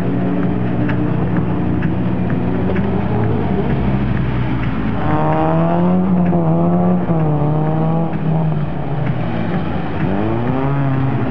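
Rally car's engine revving hard as it is driven through a cone slalom. A steady drone gives way about halfway through to repeated sharp rises and falls in pitch as the driver blips the throttle and shifts between the cones, with another rise near the end.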